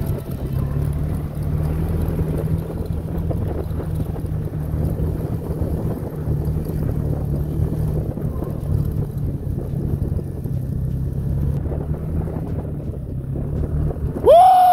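Snowmobile engine running at a steady cruising speed, with wind noise on the microphone. Near the end a loud pitched hoot rises, holds and begins to fall away.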